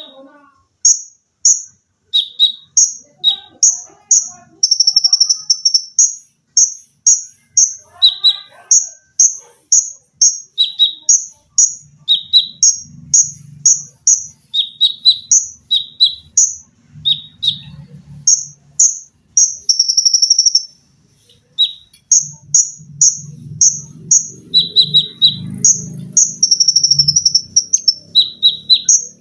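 Konin songbird singing in fast, tightly packed series of short, shrill notes, several a second, switching between a higher and a lower pitch, with a few longer trilled notes. A faint low hum sits underneath in the middle and near the end.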